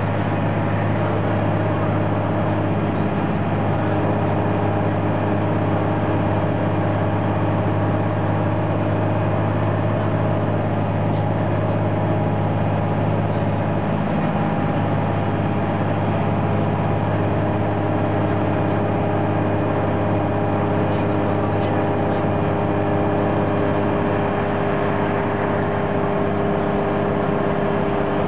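An Orion V transit bus with a Cummins ISM diesel and Voith transmission, heard from inside the passenger cabin while under way. The engine and driveline make a steady, loud drone with a low hum and a few steady tones above it, mixed with road noise.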